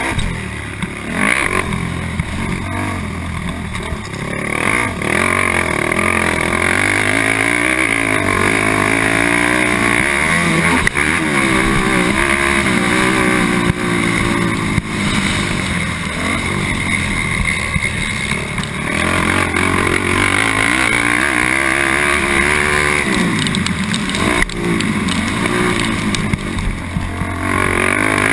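Honda TRX450R quad's single-cylinder four-stroke engine at race pace, revving hard and easing off again and again as the throttle is rolled off and back on.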